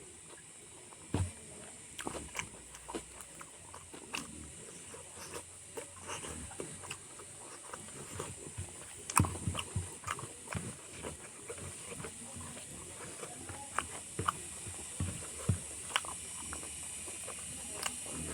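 Close-up eating sounds: chewing, lip smacks and small mouth clicks at an irregular pace, over a steady faint high hiss.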